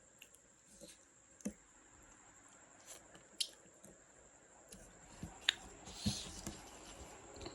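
Close-up eating sounds from a fish curry and rice meal: wet squishing and chewing with scattered soft clicks, busiest a little over halfway through.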